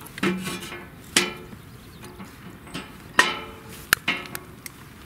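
Split firewood logs being set down one by one onto the grate of a steel fire stand: about five hollow wooden knocks, each with a brief ring.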